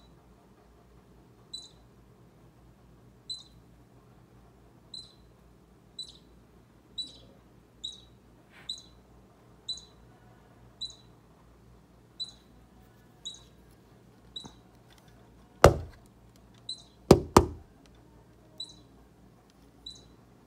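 A baby squirrel squeaking: short high squeaks repeated about once a second. About two-thirds of the way through come three loud knocks, the last two close together.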